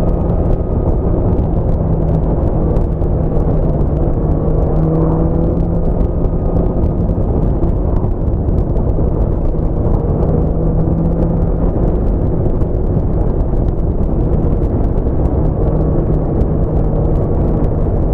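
Honda CBR650F's inline-four engine running at a steady cruise with small shifts in pitch, under heavy wind rush on the microphone.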